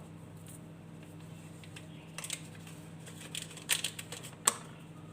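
Light rustling and a few sharp small clicks and taps from a paper sachet of baking powder being handled and emptied into a bowl of flour, the sharpest tap about four and a half seconds in. A faint steady hum lies underneath.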